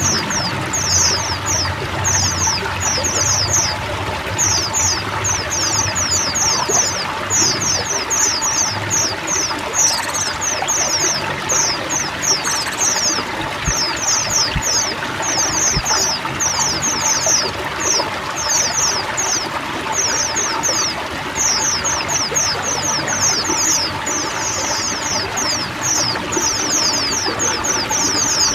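Water trickling and pouring steadily, overlaid with a pleci white-eye of the omboyokan type singing almost without pause in runs of quick, high, descending notes.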